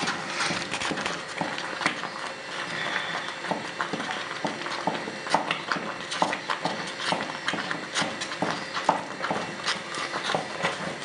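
Wooden stirring stick knocking and scraping against the pot as thick maize-meal sadza is stirred hard, a fast, irregular run of clacks.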